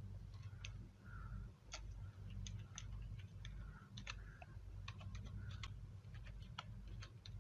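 Typing on a computer keyboard: irregular, light key clicks over a faint, steady low hum.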